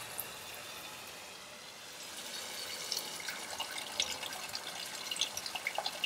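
Water running from a Joolca HotTap heater's faucet into a galvanized steel stock tank, a steady rush. About two seconds in it turns to irregular spattering as the stream hits a thermometer probe held in it.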